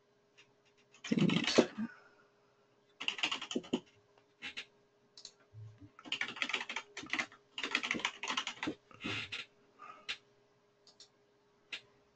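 Computer keyboard typing in several short bursts of quick keystrokes, with a few single clicks near the end.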